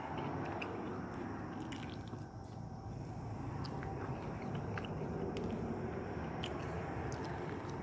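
Restaurant dining-room background noise: a steady low rumble with scattered faint clicks and taps.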